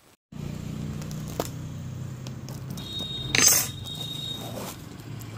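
Hands handling a taped cardboard delivery parcel, with a click about a second and a half in and a short rip of packing tape being peeled about three and a half seconds in, over a low steady hum.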